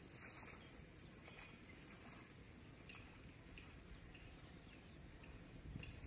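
Near silence: faint outdoor ambience with a low rumble and a few soft rustles.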